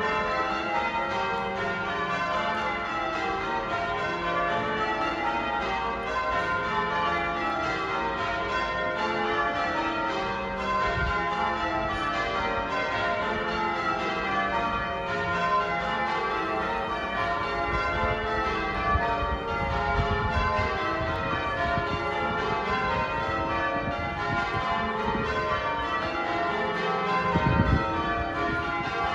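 Wakefield Cathedral's church bells in change ringing: a continuous, even run of overlapping bell strokes. A few low rumbles come through part-way in and near the end.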